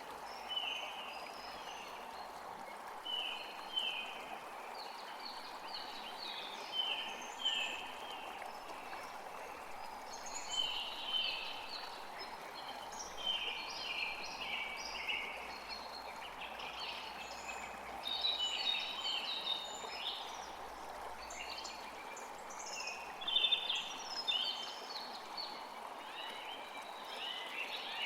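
Forest creek flowing steadily, with several songbirds chirping in short repeated notes over it, the birdsong getting busier partway through.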